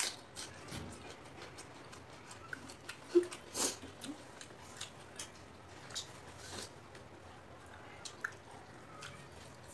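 Close-up eating sounds: chewing and lip-smacking with scattered short wet clicks, and a louder smack a little past three seconds in.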